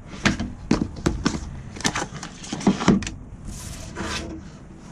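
Paperboard packaging handled by hand: a run of light knocks and taps as a cardboard insert is lifted out of its box and set down on the table, then a short sliding rustle about three and a half seconds in.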